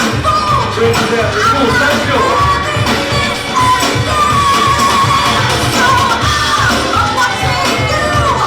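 Loud music: a sung vocal line over a steady bass beat.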